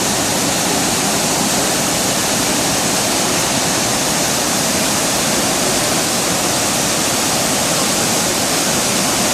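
Tortum Waterfall: a steady, unbroken rush of falling water.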